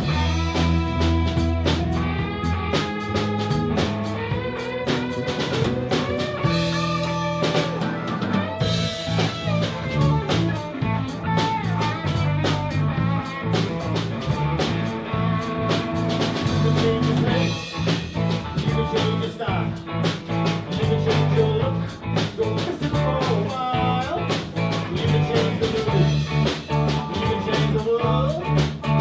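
Live blues band playing: guitar notes that bend up and down in pitch over a steady drum-kit beat.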